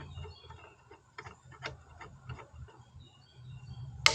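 Light clicks and taps of metal parts of a Rabaconda tire changer being handled and fitted, ending in a single sharp snap just before the end as a part snaps onto the changer's strong magnets.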